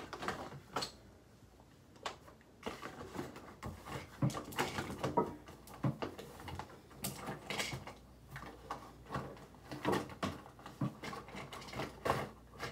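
Irregular handling noises: scattered rustles and light clicks and knocks as hair ties and hair things are handled and hair is pulled back and tied.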